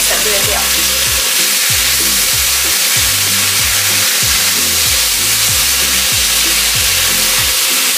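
Chicken sizzling in hot oil in a cast-iron wok as it is stirred with a spatula, under background music with a steady bass beat.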